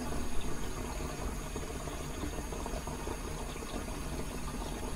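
Water running steadily into a Saniflo Sanivite drain pump's tank, a continuous trickling wash with a low rumble under it.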